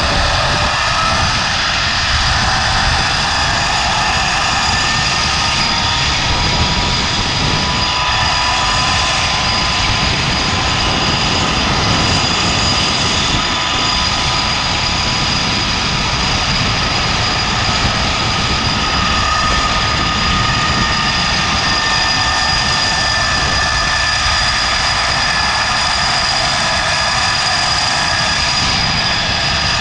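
Zip line trolley's pulleys running fast along the cable: a loud, steady whine of several tones over wind rushing on the microphone. A lower tone rises in pitch near the start as the trolley picks up speed, up to about 50 miles an hour.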